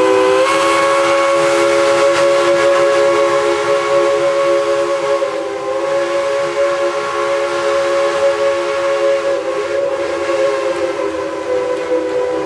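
Steam locomotive No. 190's chime whistle blowing one long, unbroken blast: a chord of several notes held steady at full volume.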